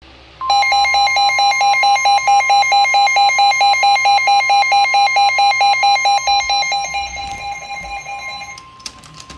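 NOAA Weather Radio's steady 1050 Hz warning alarm tone, the signal that a warning-level alert (here a flash flood warning) follows, with a harsh pulsed alarm beep sounding over it about four times a second. The beeping fades out near the end while the tone holds, followed by a couple of clicks.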